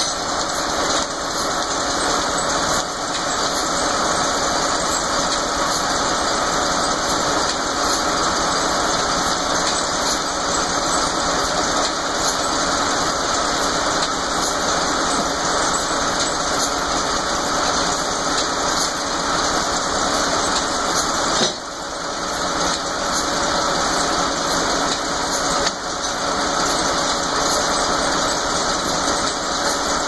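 Frick circular sawmill running, with steady mechanical noise and a squeal.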